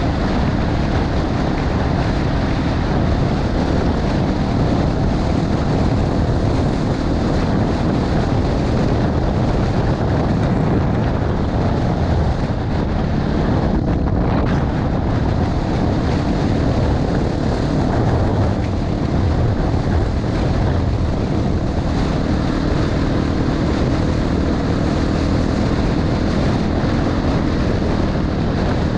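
Honda XR250 Tornado's single-cylinder four-stroke engine running at a steady cruise, mixed with wind buffeting the helmet or bike-mounted action camera's microphone.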